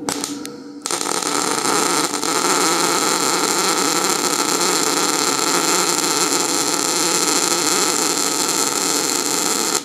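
MIG (semi-automatic, CO2-shielded) welding arc running a bead on steel plate: a few short clicks as the arc strikes, then about nine seconds of steady, loud sizzling that stops abruptly. The wire feed is set too fast for the welding current, so the wire has no time to melt and piles up into a very high bead.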